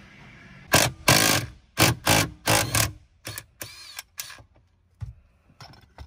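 Hand tools and a steering wheel puller being handled at a truck's steering column. There are a few short, loud bursts of noise in the first half, then lighter clicks and metal clinks.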